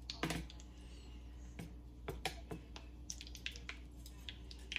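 Lumpia deep-frying in hot oil in a saucepan: irregular crackles and pops from the oil, with a few sharper clicks of metal tongs against the pot, over a low steady hum.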